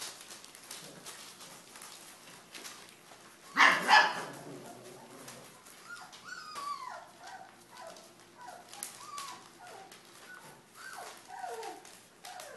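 Pyrenean Mastiff puppies about three and a half weeks old. One loud, short bark comes about three and a half seconds in. From about six seconds on there is a string of high, falling whimpers and yips, over light scratching of paws on the bedding.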